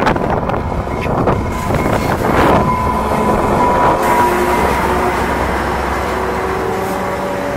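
Commuter train pulling into a station past the listener and slowing. A run of wheel clacks comes in the first second or so, then steady high squealing tones as the bilevel coaches roll by.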